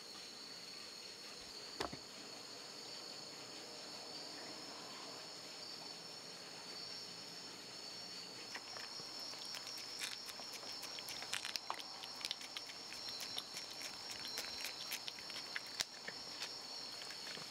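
Pet rabbit eating, with quick soft clicks of nibbling and chewing that thicken in the second half, over a steady high-pitched insect chirring.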